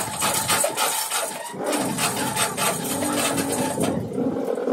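Rattling chains and clattering from a heavy sand-mould flask being lifted and turned on an overhead chain hoist, with many sharp knocks and loose moulding sand falling.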